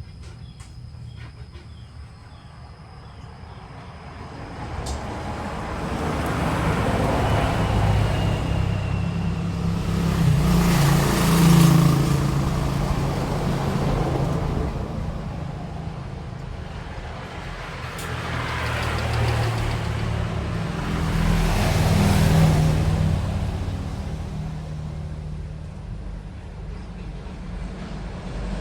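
Road traffic passing: engine and tyre noise that swells to a peak and fades away twice.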